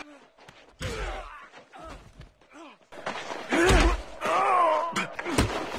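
A voice groaning and moaning in distress several times, with the longest and loudest moans about three and a half to five seconds in, and low dull thumps at some of the onsets.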